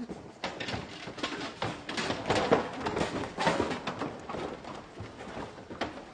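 People scrambling up a stacked pile of old wooden furniture and junk: a rapid, irregular clatter of knocks and bumps from feet and hands on the wood, loudest in the middle.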